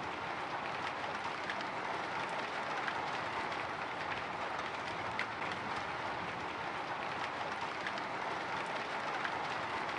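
Light drizzle falling on a window: a steady, even hiss with scattered faint ticks of single drops striking the glass.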